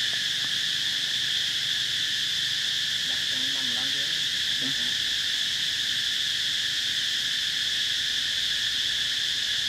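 Steady, unbroken high-pitched drone of an insect chorus. A faint voice sounds briefly about three to five seconds in.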